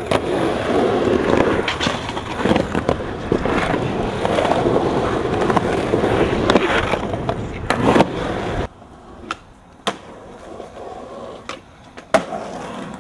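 Skateboard wheels rolling loud and rough on concrete, with sharp clacks of the board. About two-thirds of the way through it drops to a quieter stretch broken by a few single sharp clacks.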